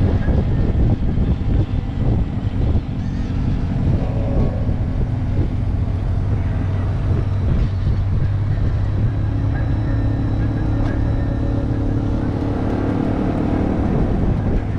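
Yamaha TW200's single-cylinder four-stroke engine running steadily while riding, with the engine note rising a little about ten seconds in.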